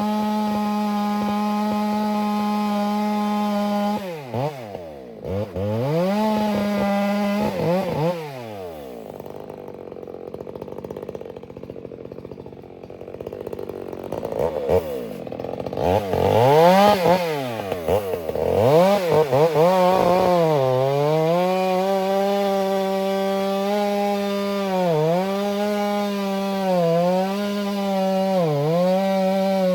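A ported Stihl MS 462 two-stroke chainsaw with a 28-inch bar runs at high revs. About four seconds in the revs drop and swing, and from about 8 to 15 s the saw runs low. It revs up again around 16 s and holds high, with a few short dips in pitch near the end as the chain loads up in wet spruce.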